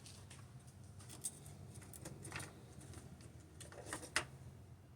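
Faint handling sounds of computer cords and connectors: a handful of light clicks and scrapes, the sharpest about four seconds in.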